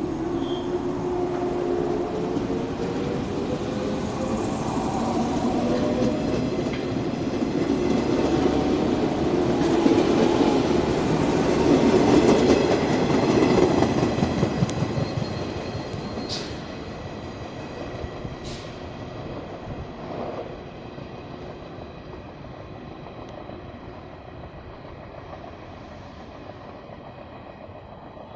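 JR 115 series electric train departing: a motor whine rises in pitch as it gathers speed, then the wheels clatter over the rail joints as the six cars pass, loudest about halfway through. It then fades as the train moves away.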